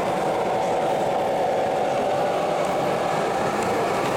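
A model train running on the layout track, a steady hum of its motor and wheels.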